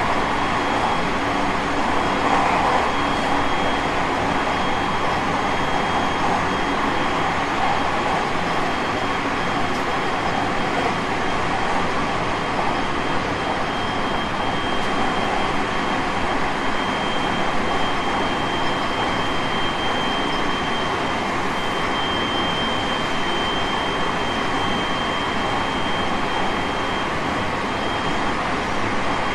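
JR West 223 series 5000-subseries electric multiple unit with Mitsubishi IGBT inverter drive, running at a steady speed and heard from inside the passenger car: an even rolling rumble and rail noise with a thin, steady high tone throughout.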